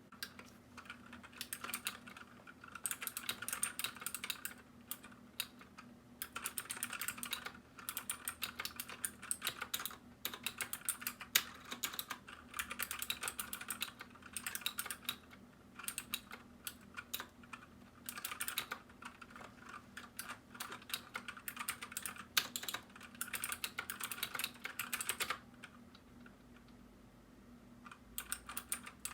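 Typing on a Keychron K6 mechanical keyboard with clicky blue switches: fast runs of key clicks in bursts, broken by short pauses and one longer pause of about three seconds near the end.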